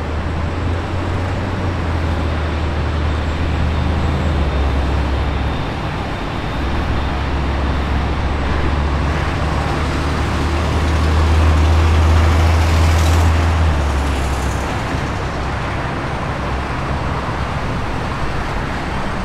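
Boeing 787-8 jet engines at low taxi power: a steady rumble over a deep low hum, swelling a little about twelve seconds in.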